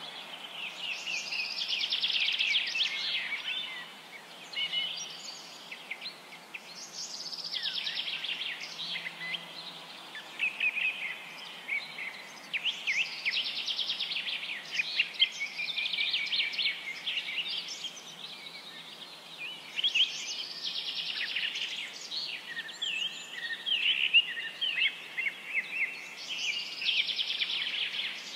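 Songbirds chirping and singing in fast, high trills that come in bursts every few seconds, over a faint steady background hiss.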